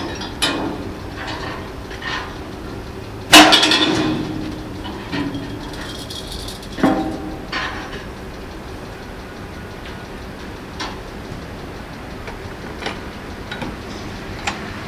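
Metal clanks and rattles as a tram's roof pantograph is raised to the overhead contact wire: one loud clank with ringing about three seconds in, a second clank about seven seconds in, and lighter clicks, over a steady hum.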